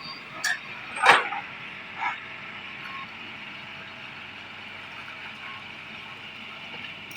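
Excavator running steadily, with a few sharp knocks in the first two seconds, the loudest about a second in.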